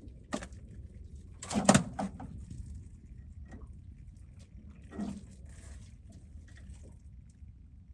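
A few knocks and thumps on a small fishing boat, the loudest a quick cluster about a second and a half in, over a low steady rumble.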